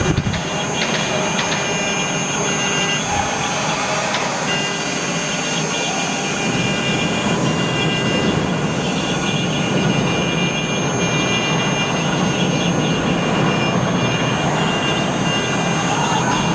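Mini CNC router with a rotary axis engraving an olive: the spindle runs with a steady high whine over a continuous cutting rasp, with a short click right at the start.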